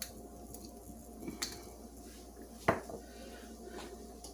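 Light clicks of a glass jar of minced garlic and its lid being handled at the stove, with one sharper clink a little past halfway.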